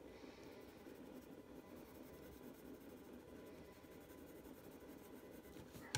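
Faint scratching of a Prismacolor mulberry coloured pencil shading on paper in light buffing strokes. A short sharp click comes right at the end.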